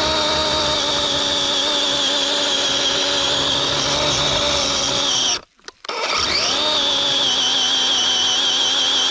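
DeWalt 20-volt cordless chainsaw with a 12-inch bar running at full speed with a steady electric whine. A little over five seconds in it stops abruptly as the trigger is let go, then spins back up with a rising whine and runs steady again.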